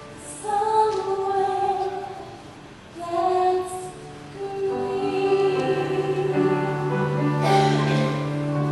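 Music from a stage musical: a woman sings long held notes over accompaniment, and the music swells into a fuller sustained chord in the second half.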